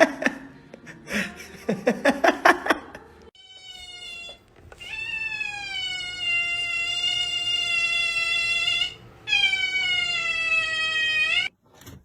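Rapid rhythmic pulsing, about six beats a second, for the first few seconds. Then a cat yowls in two long drawn-out calls, each sinking a little in pitch, the second shorter.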